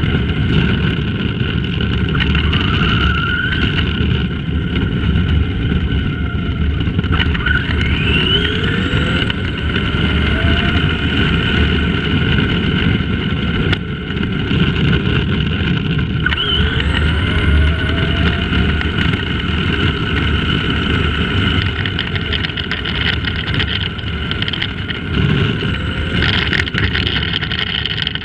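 Electric motor and geartrain of a Tamiya Madcap RC buggy whining as it drives, with heavy rumble from its tyres and chassis on rough tarmac, picked up by a camera clamped to its bumper. The whine rises in pitch several times as the car speeds up.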